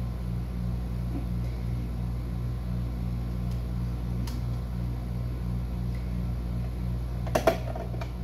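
A steady low electrical hum, with two sharp plastic clicks a fraction of a second apart near the end as cage parts are fitted back into a glass mouse tank.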